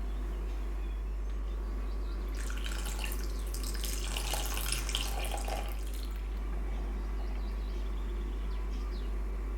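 Water running from a tap for about three and a half seconds, starting about two seconds in, over a steady low hum.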